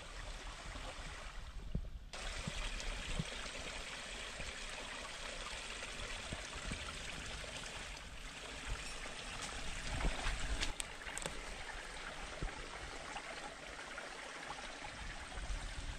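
Small mountain stream running over rocks: a steady rushing trickle, louder from about two seconds in.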